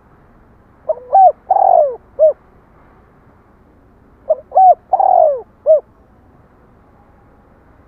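Spotted dove cooing: two phrases of four or five notes each, about a second in and again past the four-second mark, each with one longer, louder coo in the middle.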